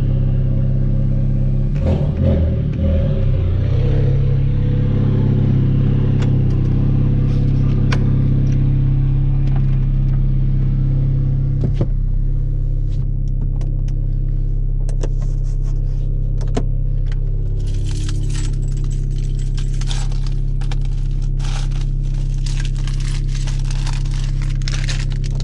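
Tuned Hyundai Veloster Turbo's 1.6-litre turbocharged four with a catless downpipe, running at a steady drone while driving. In the second half a dense, irregular run of crackles and clicks sits over the drone.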